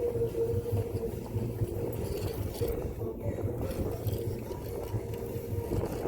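A boat's motor running steadily with a constant hum, while wind buffets the microphone with an uneven low rumble.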